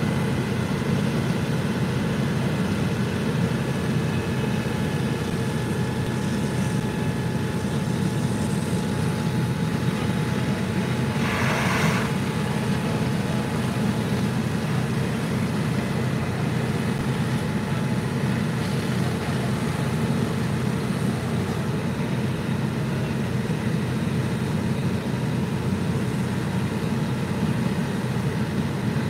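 Fire engines running steadily at a fire scene, a continuous low engine drone. A brief hiss cuts through about twelve seconds in.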